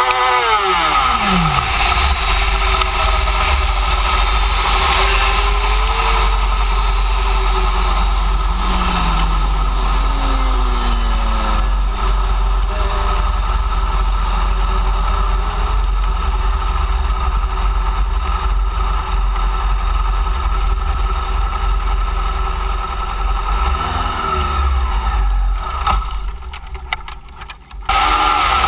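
Motorcycle engine under way: its revs fall steeply at the start, then it runs on at fairly steady revs with gentle rises and falls, under a steady wind rumble. The sound dips briefly near the end, then returns.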